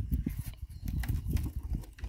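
Foil seal on the neck of a plastic coolant jug being pushed in with a thumb and peeled back: an uneven run of dull knocks and rubbing with a few sharp crackles.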